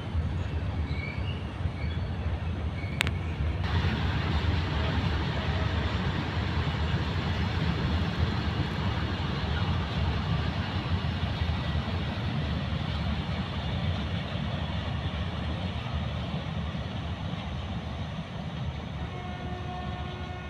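Freight train of open wagons rolling past on the rails, a steady low rumble that fades slowly as the tail of the train goes by. There is a sharp click about three seconds in, and faint steady tones near the end.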